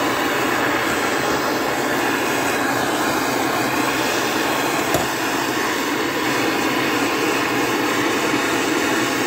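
Hand-held MAP gas torch burning steadily, its flame heating a piston to loosen stuck piston rings. A single brief click about five seconds in.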